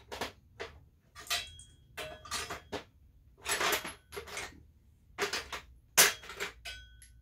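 Metal sockets and hand tools clinking and clattering as they are rummaged through in a tool tray, a string of irregular clatters, some ringing briefly.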